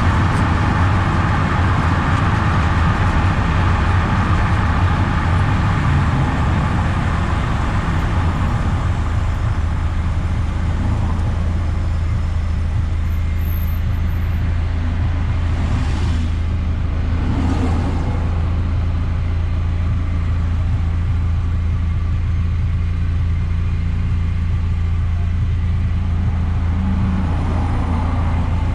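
Eunos Roadster on the move: a steady low engine drone with road noise, which eases off about a third of the way through, and two brief noises in quick succession about two thirds of the way in.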